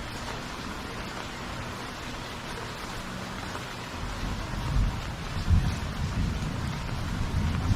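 Heavy rain falling steadily with a constant hiss. About halfway through, a low, uneven rumble comes in and grows louder.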